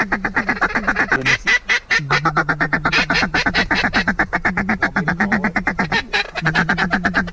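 Mallard duck call blown in a fast chattering feed call, about ten notes a second, with two short breaks, calling to mallards circling overhead.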